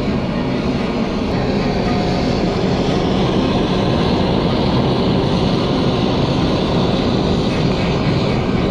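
Handheld gas blowtorch burning with a steady rushing roar, its flame held on scraps of tin-lead solder melting in a steel pan.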